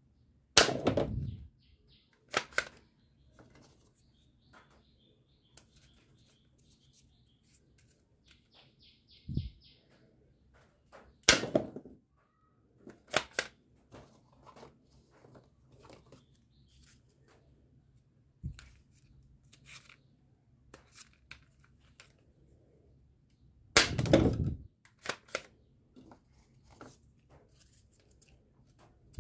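Plastic toy pump-action foam-dart shotgun being cocked and fired: several loud sharp snaps a few seconds apart, with clicks and rattles of plastic parts and darts being handled in between.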